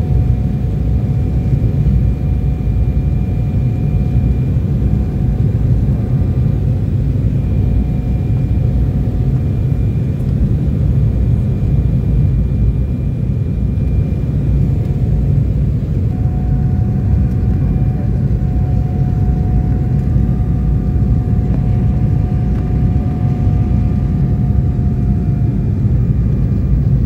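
Steady jet airliner cabin noise heard from a window seat: a loud, even low rumble of engines and airflow, with faint high whine tones from the engines that come and go.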